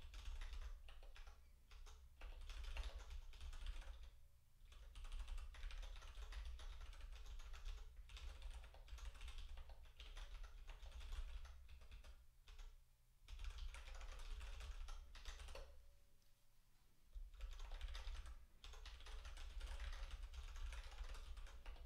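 Typing on a computer keyboard: quick runs of keystroke clicks broken by short pauses, the longest about four seconds in and around sixteen seconds in.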